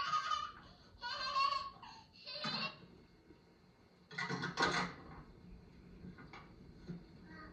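Toddlers' high-pitched squeals and babbling: a few short cries in the first three seconds and a louder burst about four seconds in. Then a couple of light clicks and knocks as the toy play kitchen is handled.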